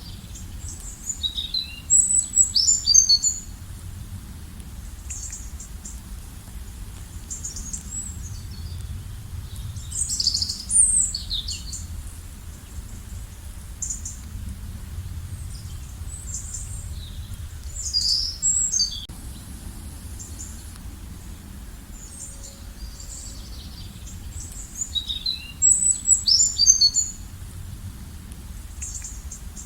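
Songbirds singing in short bursts of high, quick chirping phrases, four main bursts, over a steady low outdoor background hum.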